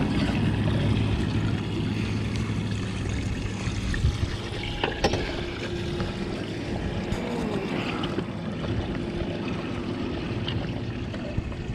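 Water trickling steadily in a boat's live bait well, with a low hum under it and a couple of light knocks about four and five seconds in.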